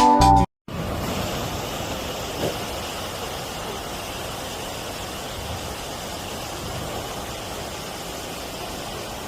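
Music cuts off about half a second in. After a brief gap comes a steady, even rushing noise with no tone in it.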